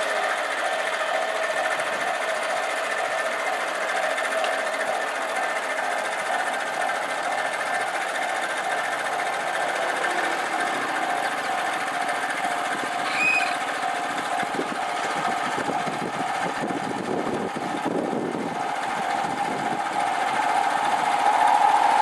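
Japanese railway level-crossing alarm ringing its rapid, repeating electronic ding with the barriers down. A train's rumble grows louder near the end as it approaches the crossing.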